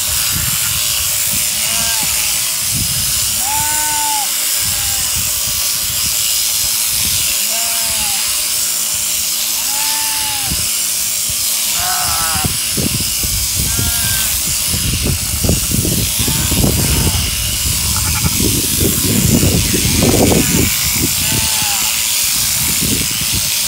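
Sheep-shearing handpiece, driven through the overhead plant's jointed down tube, running steadily with a high hiss as it cuts the fleece from a held sheep. Short sheep bleats come every second or two. Rustling and knocks from the sheep being handled on the mat grow louder in the second half.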